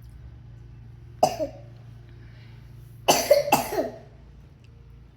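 A person coughing: one cough about a second in, then two coughs close together about three seconds in, over a low steady hum.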